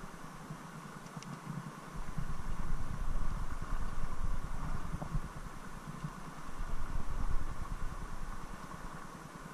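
Steady rush of a shallow, fast-flowing river's current, with a low rumbling on the microphone that comes and goes, stronger from about two seconds in.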